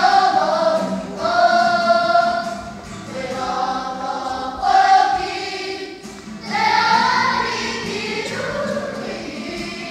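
A group of young voices singing together, in phrases of long held notes with short breaks between them.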